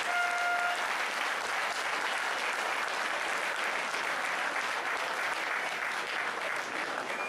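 Football stadium crowd applauding, a steady patter of clapping throughout. A short pitched tone, like a horn, sounds briefly near the start.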